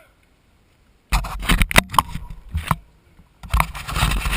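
Mountain bike rolling over rough ground, with irregular rattling, clicks and scraping. It starts suddenly about a second in, after near silence, and pauses briefly near the end.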